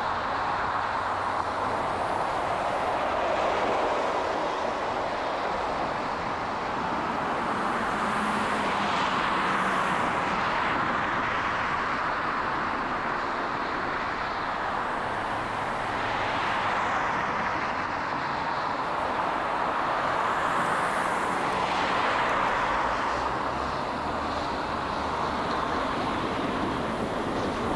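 Road traffic noise: a steady hum of tyres and engines, with passing cars swelling up and fading away several times.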